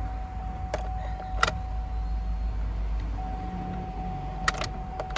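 2008 Hummer H2 V8 engine starting and running, with a few sharp clicks and a steady high tone over it. The engine is being test-run after a new oil strainer O-ring, to check the low oil pressure and the ticking valve lifters.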